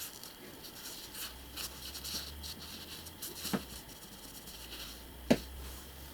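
Scratchy rustling and scraping of hand work, with two sharp clicks, the second louder, about three and a half and five seconds in.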